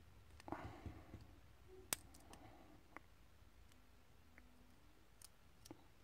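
Faint, scattered small metallic clicks of a steel pick-tool or tweezers working inside a brass lock cylinder as its pins and springs are taken out, a few in quick succession in the first second or so, then single ticks spaced out.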